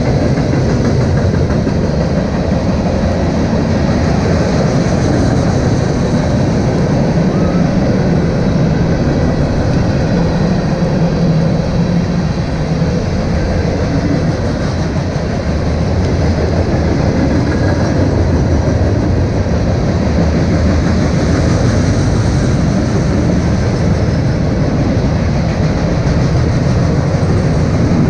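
Freight train cars rolling past on steel wheels, a steady rumble and rattle from the rails that keeps up throughout.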